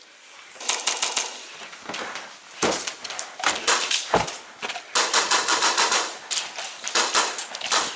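GHK URG1 airsoft gas blowback rifle firing a series of rapid bursts of sharp clacking shots, with short pauses between the bursts.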